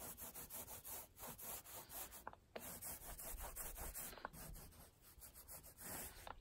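Small foam paint roller rolled quickly back and forth over a Land Rover body panel, laying on wet paint with a faint, rapidly repeated rubbing sound.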